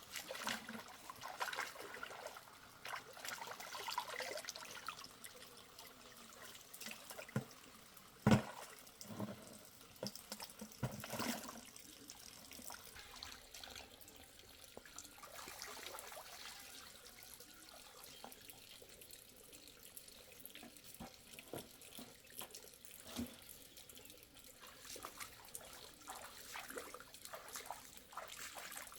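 Water splashing and trickling in irregular spurts, with scattered small knocks and one sharp knock about eight seconds in; the splashing thins out in the second half.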